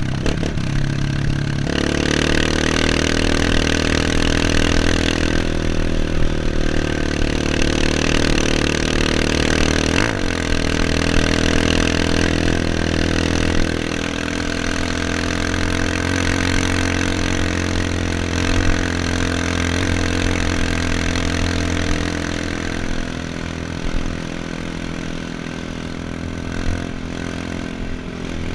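Dirt bike engine running on a trail ride, its pitch stepping up about two seconds in and changing again around halfway through as the throttle and gears change.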